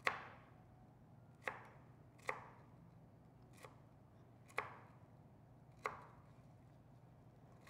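Chef's knife chopping a bundle of flat-leaf parsley on a wood-fibre composite cutting board: slow, careful single chops, each a sharp tap of the blade on the board, roughly one a second.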